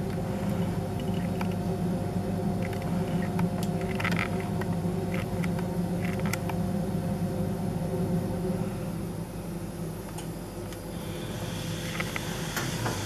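A steady low hum with a few faint, short clicks scattered through it; about eleven seconds in, a soft hiss rises over it.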